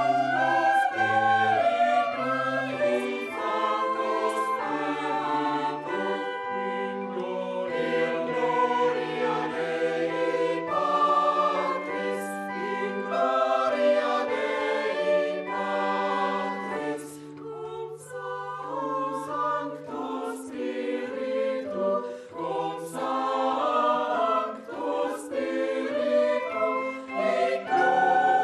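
Choir singing a sacred piece in several parts, with held notes in the low voices under moving upper parts.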